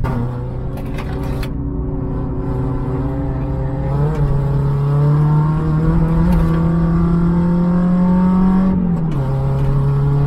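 Peugeot 106 Sport's 1.4-litre eight-valve four-cylinder engine heard from inside the cabin, accelerating with its pitch rising steadily for about eight seconds. Near the end the pitch drops at an upshift, and it pulls on in the next gear.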